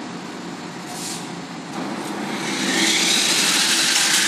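RC car running on a concrete floor: a whirring hiss of its motor and tyres that grows loud about two seconds in.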